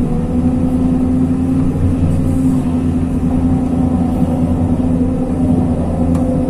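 Hyundai R220 excavator's diesel engine running steadily with a constant hum, while the hydraulics work the bucket.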